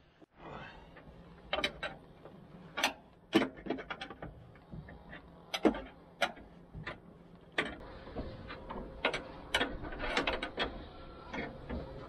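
A steel wrench clinking and knocking on the hold-down bolts of a skid steer's tilting cab while they are loosened. Irregular sharp metallic clicks come one at a time, with closer runs at times.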